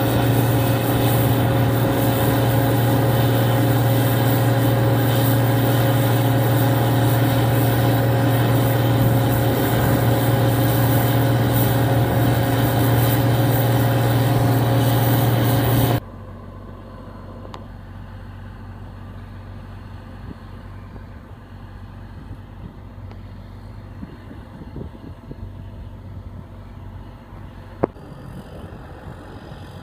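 Gleaner R55 combine running close up while unloading grain through its auger into a truck: a loud, steady engine and machinery drone. About halfway through it cuts abruptly to the combine farther off, much quieter, with one sharp click near the end.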